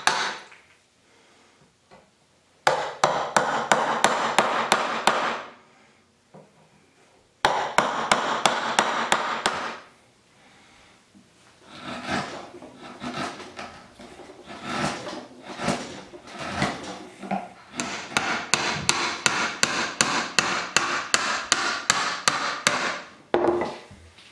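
A wood chisel being struck again and again, chopping out a mortise in a wooden beam: rapid, even knocks at about five a second, in three runs with short pauses between, the last run the longest.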